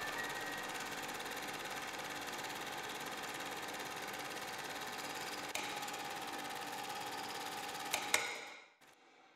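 A small machine running with a steady, fast rattling whir and faint steady tones, a click about halfway through and two more near the end, after which it dies away.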